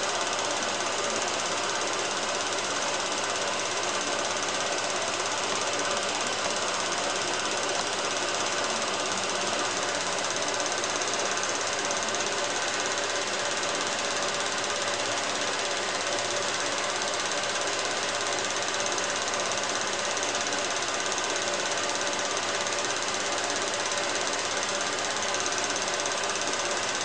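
16mm cine film projector running, its shutter and claw mechanism giving a steady, rapid mechanical clatter over a hiss.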